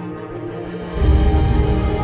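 Background music of held, sustained tones that swells about a second in, with a deep bass coming in and the music growing louder.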